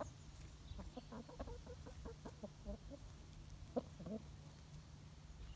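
Chickens clucking softly, a quick run of short low clucks for about three seconds over a faint low rumble.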